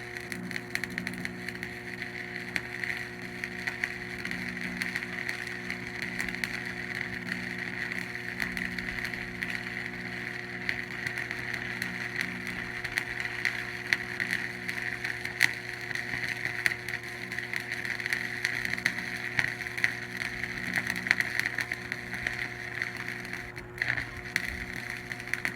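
Stick welding with 7018 AC rods on a Hobart Stickmate AC buzz-box welder: the arc's steady crackling sizzle over a low steady hum, cutting off abruptly near the end as the arc is broken.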